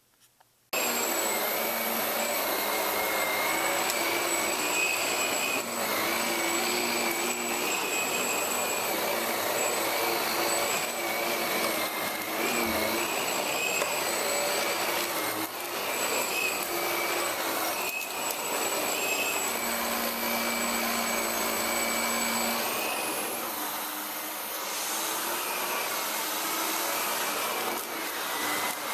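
Hotpoint Energy Power 4 bagless cylinder vacuum cleaner running: a steady rush of air with a high whine that wavers slightly in pitch. It starts abruptly about a second in.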